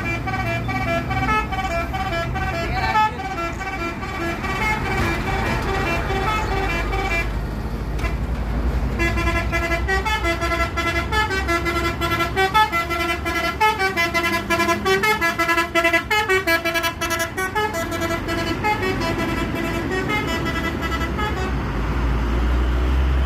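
A tour bus's telolet horn, a multi-tone musical air horn, plays quick melodic runs of stepped notes with a short break about seven seconds in, over the bus's running engine. The engine rumble grows louder near the end.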